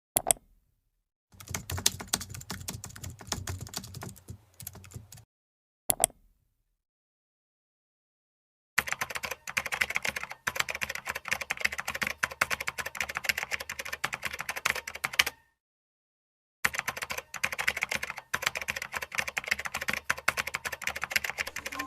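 Fast typing on a computer keyboard in three runs of rapid keystrokes, each a few seconds long. A single sharp click comes just after the start and another about six seconds in, and the sound cuts off completely between runs.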